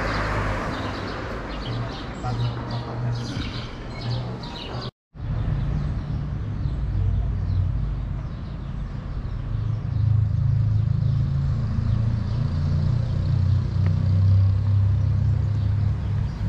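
Steady low rumble of a moving vehicle, with brief high chirps over it in the first few seconds. The sound cuts out completely for a moment about five seconds in, then the rumble carries on and grows a little louder later.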